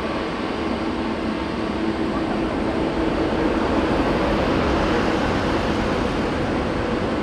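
Four jet engines of a Boeing 747-400 freighter running as it rolls along the runway after landing. A steady rushing noise with a low hum in it, growing a little louder toward the middle.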